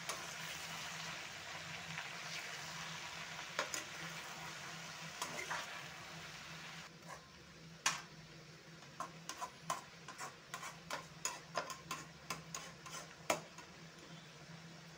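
Metal spatula stirring chopped spring onions and potatoes in an aluminium kadhai over a steady sizzle of frying. In the second half the sizzle is quieter and the spatula's quick clicks and scrapes against the pan stand out, several a second.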